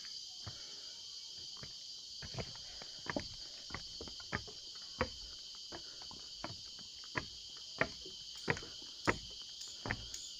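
Steady, high-pitched chorus of tropical forest insects, with irregular soft thuds underneath that come a little louder and closer together near the end.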